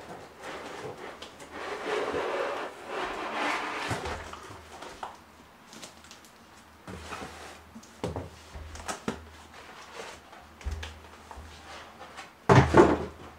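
Unboxing handling: a plastic-wrapped cutting machine and its cardboard box being lifted and moved, with packaging rustling and cardboard scraping, scattered small knocks, and a louder knock and rustle near the end.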